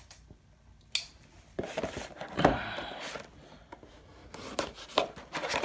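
A blade slitting the plastic shrink-wrap on a cardboard trading-card box: a tap about a second in, then a few seconds of crinkling, scraping plastic, followed by scattered light clicks and taps as the box is handled.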